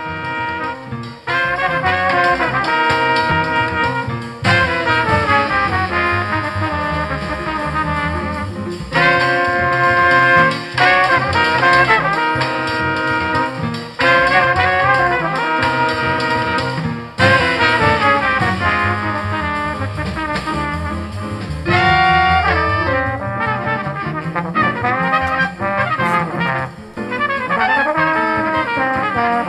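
Big-band orchestral music led by trumpets and trombones, played back loud through a pair of JBL D130 15-inch (38 cm) drivers used full-range with no tweeter.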